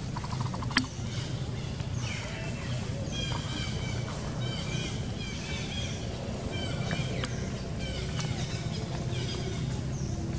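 Outdoor ambience of birds calling, repeated short high chirps and falling whistles, over a steady low hum, with one sharp click about a second in.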